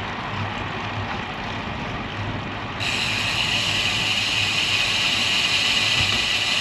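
Wind rushing over the camera microphone, with tyre noise from a road bike riding on an asphalt shoulder. About three seconds in, a steady high hiss comes in abruptly and stays.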